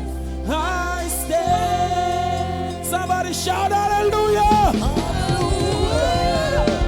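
Gospel praise singing with instrumental accompaniment: sung melody lines over sustained bass notes.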